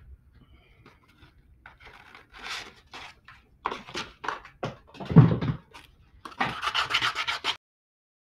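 220-grit sandpaper rubbed by hand over an epoxy-coated glitter tumbler, sanding back a badly mixed epoxy coat. It goes in short, uneven strokes and ends in a quick run of fast back-and-forth strokes. A thump about five seconds in is the loudest sound.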